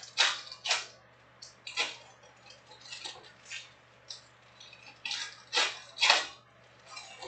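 Foil trading-card pack wrappers being torn open and crinkled by hand: a string of short rustling rips, loudest near the start and around five to six seconds in.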